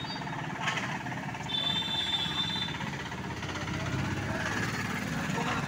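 Street traffic noise: vehicle engines running steadily, with a short knock under a second in and a high, thin steady tone held for about a second near the middle.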